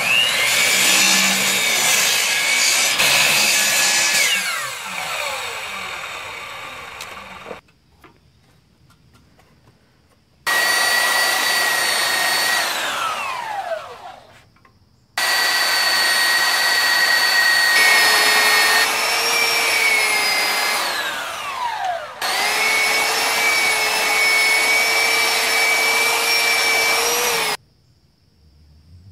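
Electric mitre saw starting up and cutting through a log, its motor whine falling away as the blade spins down. Further runs of a power tool motor follow, with steady whines, two of them winding down in falling pitch and the last cutting off abruptly.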